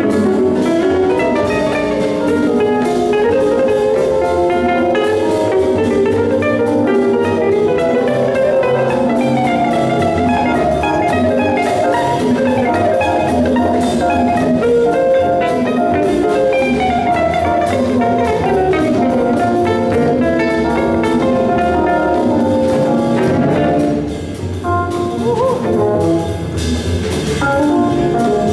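A live gypsy jazz band playing an up-tempo tune on acoustic guitar, double bass, drum kit and keyboard. The music drops briefly in loudness about 24 seconds in, then picks up again.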